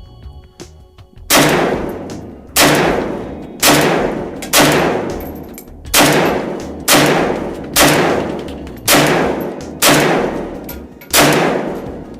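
Zastava O-PAP AK-pattern rifle in 7.62×39 firing ten semi-automatic shots about a second apart, each loud report trailing off in a long echo. Every round feeds from the Tapco magazine that had earlier failed to load, with no stoppage.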